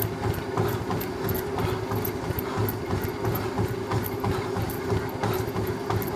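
Running on a treadmill: the steady hum of the belt and motor, with rhythmic footfall thuds on the deck about three a second and scattered rubbing clicks from the phone held in the swinging hand.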